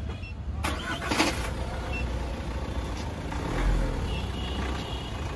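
Steady low rumble of traffic, with a sharp click about a second in, a short rustle just after it, and a dull thump in the middle.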